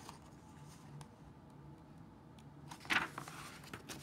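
A paper page of a picture book being turned by hand: a brief rustle about three seconds in, against faint room hum.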